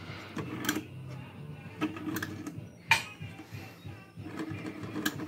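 Scattered clicks from the Comfort-Stat thermostat knob being turned on a 1966 Admiral window air conditioner, the sharpest about three seconds in, over a low steady hum.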